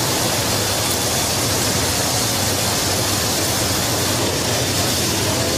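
Steady rush of airflow and turbofan engine noise at the open paratroop door of a C-17 Globemaster III in flight, with a constant low hum beneath.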